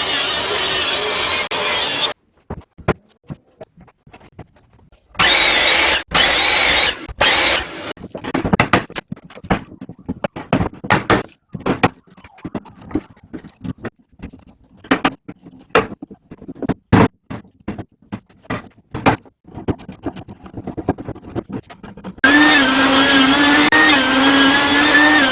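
Woodworking in a shop: short runs of a power tool cutting wood, then a long stretch of scattered knocks and clatter from handling the boards, and near the end a power tool starting up and running steadily with a constant whine.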